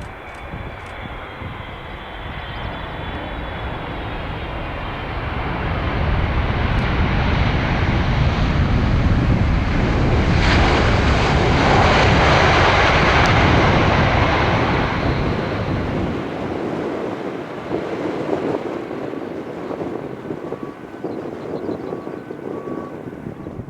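Boeing 777 freighter's GE90 turbofan jet engines as the arriving aircraft passes by. The jet noise swells to a peak about halfway through and then fades away.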